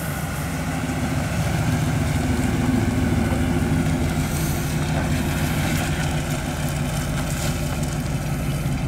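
Fuel-injected 350 cubic-inch small-block V8 of a 1959 Chevrolet Apache 3100 pickup running at low speed as the truck pulls out and drives off. A steady low engine note that grows louder over the first few seconds, then holds.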